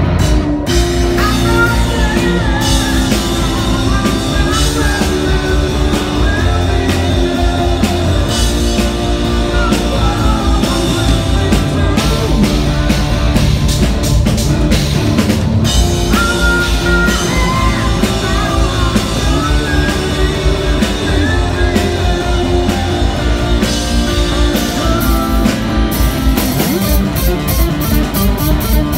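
Live rock band playing loudly: Telecaster-style electric guitar, electric bass and drum kit together, with a lead line that bends in pitch.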